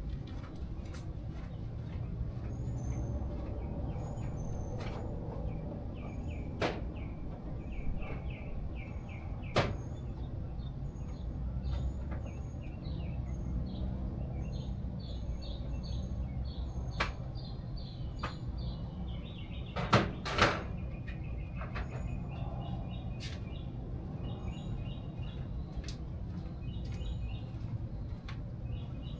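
Birds chirping in short repeated phrases over a low steady hum, with a few sharp clicks and knocks of hand tools on metal, the loudest a pair about twenty seconds in.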